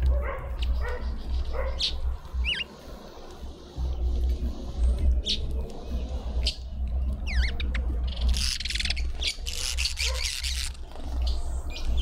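Small birds at a garden feeder calling: short chirps and a few quick gliding calls, then a harsh, noisy burst of about two seconds from around eight seconds in. A steady low rumble runs underneath.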